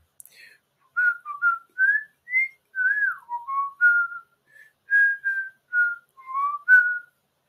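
A person whistling a short, wandering tune: a string of clear notes, some sliding up or down in pitch, starting about a second in.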